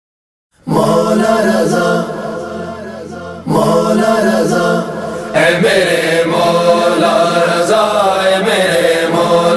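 Male chorus chanting the opening of an Urdu manqabat, layered voices over a low steady drone. The voices come in about half a second in, in long phrases, and grow fuller and brighter from about five seconds in.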